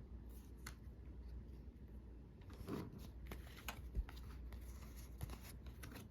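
Magic: The Gathering trading cards being handled and flipped through, with light papery clicks and slides, a louder rustle a little under three seconds in and a sharp tap about four seconds in.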